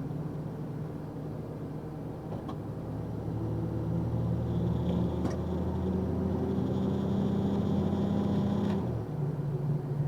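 Box truck engine heard from inside the cab: a low steady hum that grows louder and slowly climbs in pitch from about three seconds in, then drops away suddenly near the end.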